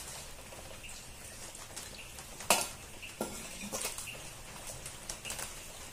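Hands mixing and kneading finger millet (nachni) flour with water in a steel plate: soft rubbing and patting with scattered clinks and knocks against the steel, the loudest about two and a half seconds in.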